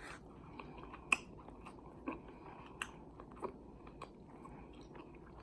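Close-miked chewing of a bite of smoked beef short rib with barbecue sauce. Faint and low, with a few soft clicks, the loudest about a second in.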